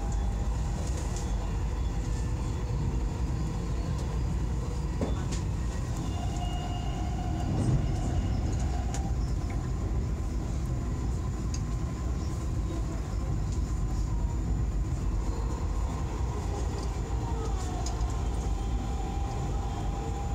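Dubai Metro train running along an elevated track, heard from inside the car: a steady rumble with a faint high electric whine and occasional clicks from the wheels on the rails, swelling briefly about eight seconds in.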